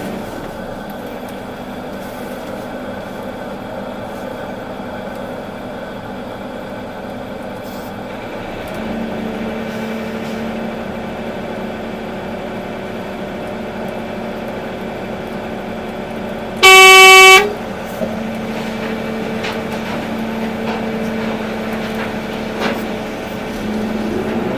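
Volvo EC380D excavator's diesel engine running steadily, pulling a little harder from about nine seconds in. About seventeen seconds in, a single loud horn blast lasting under a second cuts through.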